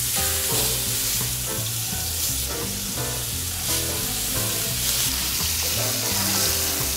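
Beef short ribs sizzling as they sear in a hot cast-iron skillet, a steady dense frying hiss, over background music with a low bass line.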